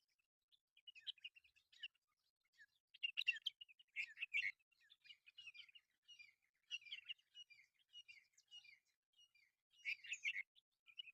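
Birds chirping and twittering in quick, faint clusters of high notes, with short gaps between them.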